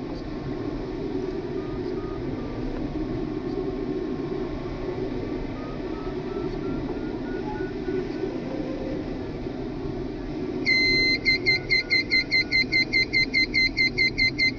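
Steady rush of air around a glider's canopy, with a faint beeping variometer tone that slowly rises in pitch while the glider circles. About eleven seconds in, a FLARM collision warning starts: loud, fast beeping at about four beeps a second, the alarm for another glider on a collision course.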